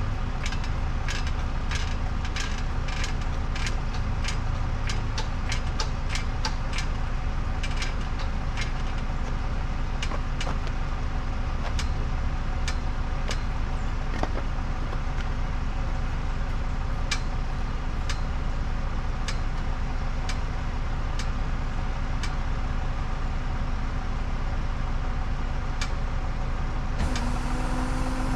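Tow truck engine running steadily, with a run of sharp clicks, quick at first and sparser later. Near the end a new, higher steady hum comes in over the engine.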